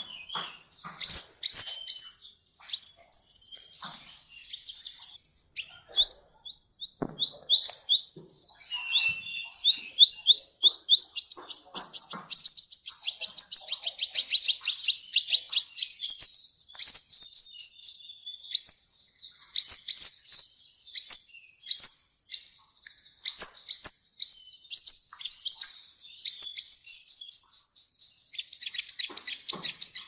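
Van Hasselt's sunbird ('kolibri ninja') singing a long, varied song of rapid, high, sharp chirps and trills, several notes a second with only short breaks.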